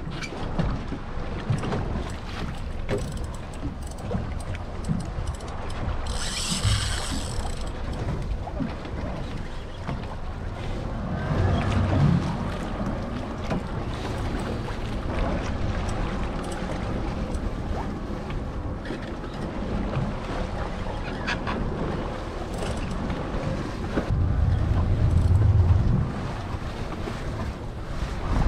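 Wind buffeting the microphone over the wash of sea water against a boat hull, with stronger gusts about twelve seconds in and again near the end. A brief high-pitched buzz sounds about six seconds in.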